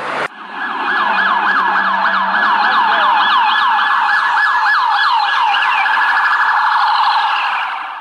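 Police car siren in a fast yelp, its pitch sweeping up and down about three times a second, fading out near the end.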